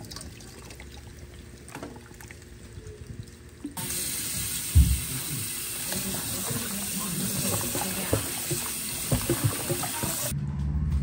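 Kitchen sink tap running, turned on about four seconds in and shut off near the end, with a loud thump just after it starts. Quieter clattering of things being handled comes before it.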